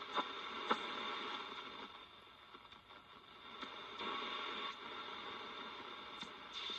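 Homemade vacuum-tube radio receiver being tuned between stations: hiss and static from its speaker, with a couple of faint clicks near the start. The noise fades about two seconds in and comes back up about four seconds in.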